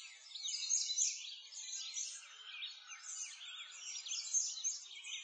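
Birdsong: many small birds chirping together in a dense, continuous chorus of short high chirps.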